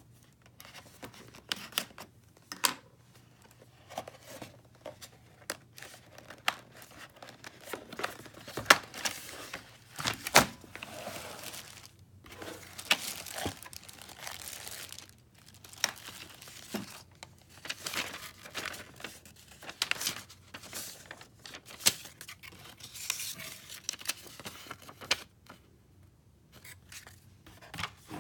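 Packaging being opened by hand: plastic film crinkling and tearing as it is pulled off a keyboard, with a cardboard box being slit and handled in scattered clicks, scrapes and rustles.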